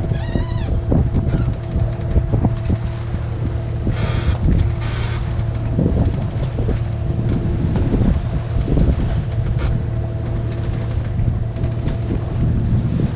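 A sailboat's auxiliary engine running steadily, a low drone with a steady hum, while wind buffets the microphone and water rushes past the hull. A short wavering high note sounds just after the start, and a brief rush of noise about four seconds in.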